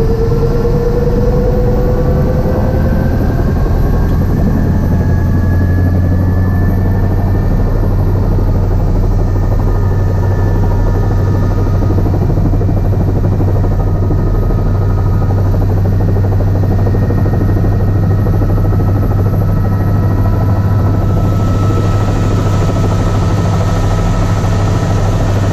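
Helicopter's turbine engine and rotor running while the aircraft sits on the helipad, heard from inside the cabin. A loud, steady low hum carries a whine that rises in pitch over the first several seconds and then holds steady.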